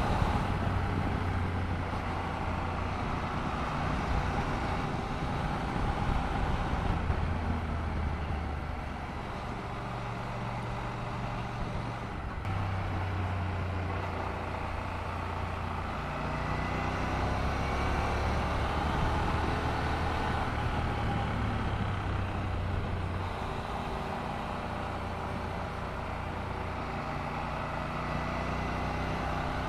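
Honda NC750X parallel-twin engine running while riding, with wind and road noise rushing past. The engine note rises and falls a few times as the throttle changes through the bends.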